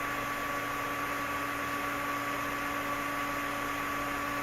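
Steady electrical hum with an even hiss from a running HVAC controls test board, several fixed tones holding without change.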